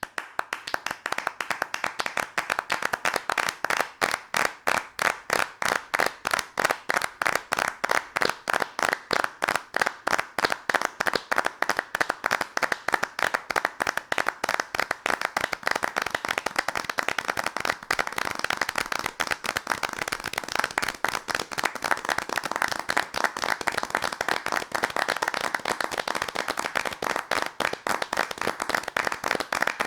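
A large crowd clapping and applauding, many hands at once. It starts abruptly, and the distinct claps of the first several seconds thicken into a dense, even patter of applause.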